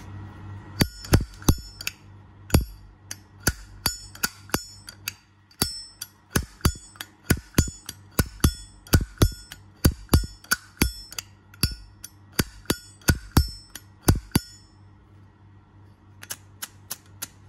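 Brass Zippo lighter's hinged lid being flicked open and snapped shut over and over: quick, sharp metallic clicks with a bright ring, pausing briefly near the end before starting again. The crisp click is the "good sound" a sound lid cam and hinge give.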